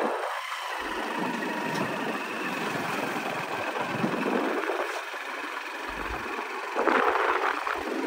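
Motorcycle riding along a road, its engine running under a steady rush of wind and road noise, a little louder near the end.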